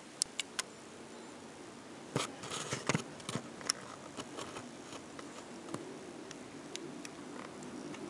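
Three sharp clicks, then a cluster of clicks and rustling about two seconds in and scattered single ticks after that, over faint steady background noise: handling noise from the camera being moved.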